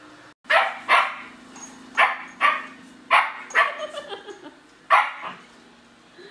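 German Shepherd puppy barking at a robot vacuum: about eight short, sharp barks in irregular bunches, with the vacuum's steady low hum underneath.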